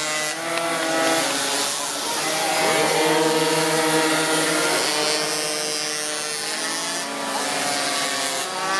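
Small two-stroke engines of racing minimotos (pocket bikes) buzzing at high revs, several at once, their pitch rising and falling with the throttle.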